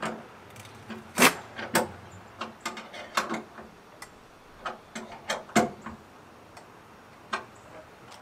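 End cap being pressed and tapped onto the end of an ADARAC truck rack crossbar: a string of irregular sharp clicks and knocks, loudest about a second in and again past the middle.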